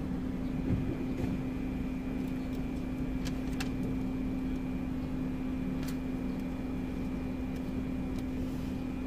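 A steady motor hum, with a faint high whine above it from about half a second in and a few light clicks.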